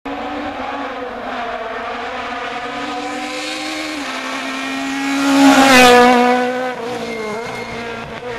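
Rally car engine at high revs, approaching, then passing close by about two-thirds of the way through with a drop in pitch, and pulling away. The sound cuts off abruptly at the end.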